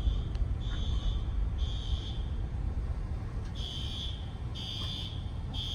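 Building fire alarm horns beeping in the temporal-three evacuation pattern: three high beeps, a pause of about a second and a half, then three more. A steady low rumble runs underneath.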